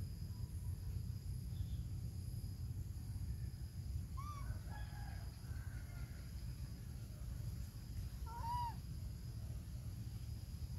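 Two short, arched animal calls, one about four seconds in and one about eight and a half seconds in. They sit over a steady low rumble and a faint, steady high-pitched hum.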